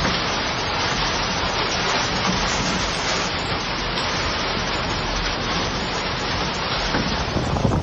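Heavy rain and rushing water in a storm, a steady dense hiss.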